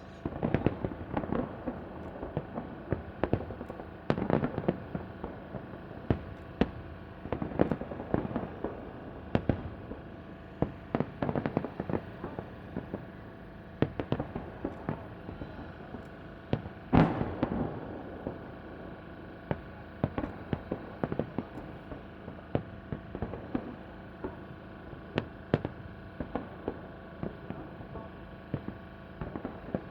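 Festive fireworks salute bursting overhead: a long run of bangs and pops at irregular intervals, sometimes in quick clusters, with the loudest bang about halfway through.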